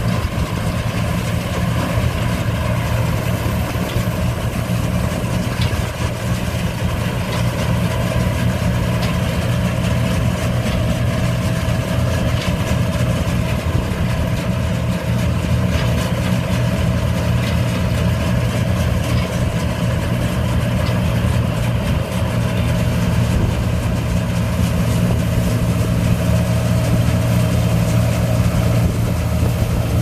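Kincaid 8-XP plot combine running steadily as it harvests a cereal plot: a steady engine drone with a faint steady whine from the machine above it.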